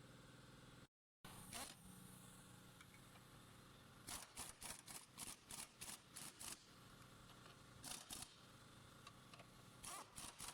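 Faint short metallic clicks and clinks over a steady low hum: a quick run of about eight in the middle, then a few more near the end.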